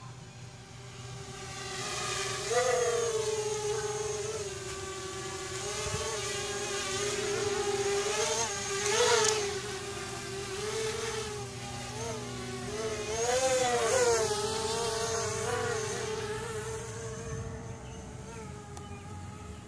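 Small quadcopter's electric motors and propellers whining, the pitch rising and falling as the throttle changes. It grows louder as the drone comes close, peaks around 9 and 14 seconds in, and fades near the end as it flies away.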